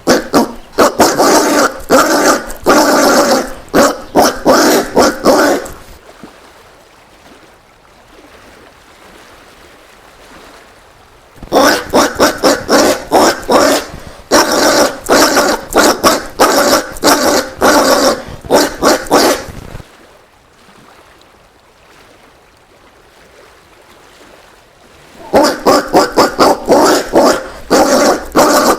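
Collared peccary calling in rapid series of short, loud calls. The calls come in three bouts separated by pauses of about five seconds.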